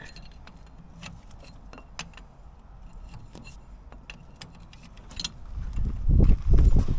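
Spanner and metal hydraulic fittings clinking, a scatter of light metal clicks. About five and a half seconds in, louder low thuds and bumping handling noise take over.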